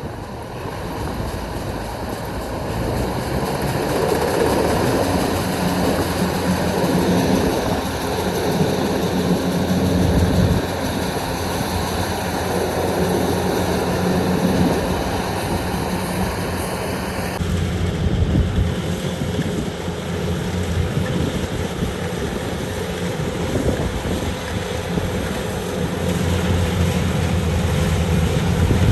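Kubota DC-70 combine harvester's three-cylinder turbocharged diesel engine running steadily under way, with a constant low engine note and machine noise.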